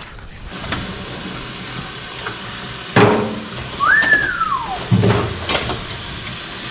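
Tap running into a stainless steel sink of soapy water, starting about half a second in, while cutlery and dishes are washed. There are a couple of louder knocks, about three and five seconds in, and a short whistle-like sound near four seconds that rises then falls.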